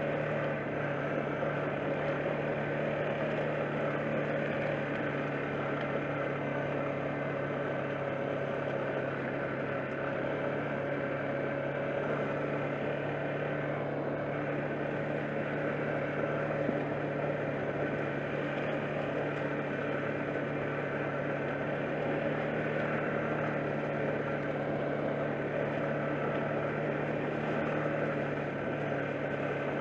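ATV engine running steadily as the quad rides along a rough gravel trail, a constant drone that holds the same pitch throughout.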